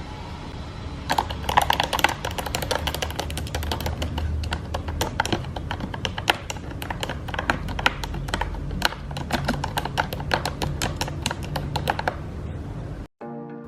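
Typing on a computer keyboard: a fast, uneven run of key clicks starting about a second in and stopping about a second before the end, over a low steady hum. After a sudden cut, music comes in at the very end.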